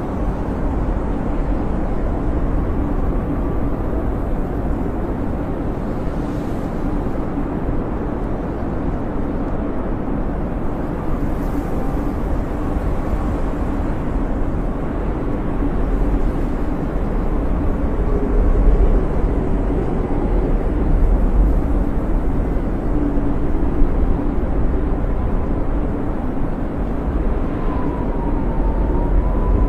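Snowstorm wind howling steadily with a deep rumble, and faint whistling tones that waver up and down now and then, most clearly near the end.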